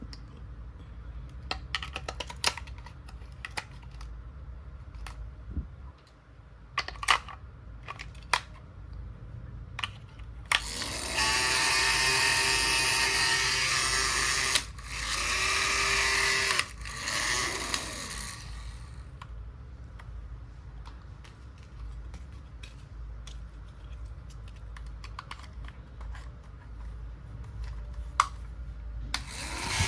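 Small plastic toy pieces clicking and tapping, then a small battery motor in a toy kitchen appliance whirring. It runs for about four seconds, stops, then runs for two more seconds and once more briefly, winding up and down each time.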